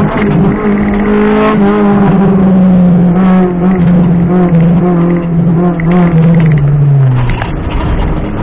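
Honda Civic rally car's engine heard loud from inside the cabin, its note sinking slowly as the car slows for a bend, then dropping further near the end.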